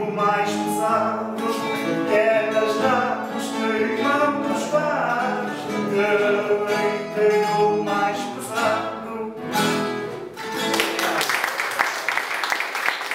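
A man singing an improvised Azorean cantoria verse to strummed acoustic guitar and viola da terra. The song ends about eleven seconds in and applause follows.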